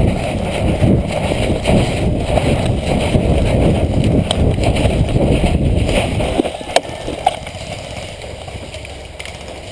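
Irregular footfalls and gear rustle of an airsoft player running, with wind buffeting the microphone, easing off about six and a half seconds in; a couple of sharp clicks follow in the quieter stretch.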